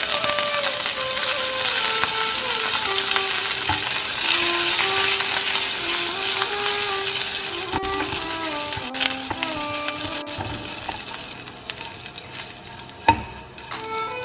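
Sliced onion, dried red chillies and curry leaves sizzling in hot oil in a nonstick frying pan as the tempering for a ridge gourd curry, stirred with a spatula. The sizzle is loudest a few seconds in and dies down over the last few seconds, with one sharp tap near the end.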